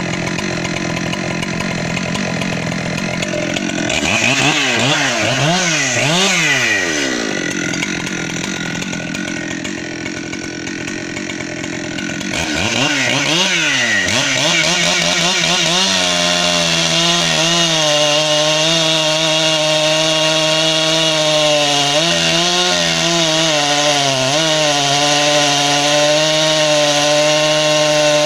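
Ported Echo CS-7310SX 73.5 cc two-stroke chainsaw idling, then revved up and down in quick throttle blips twice. From about halfway through it is held at steady high revs as it cuts into a log, the pitch dipping slightly now and then under load.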